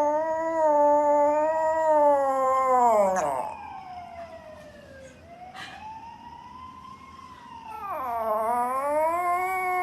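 A dog howling in long, wavering, pitched calls. The first howl falls away after about three seconds, and a second rises in near the end.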